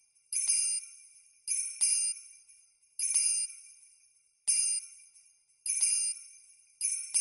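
Bright bell strikes ringing out in a regular pattern, about one every second and a half with some in quick pairs, each fading away over about a second.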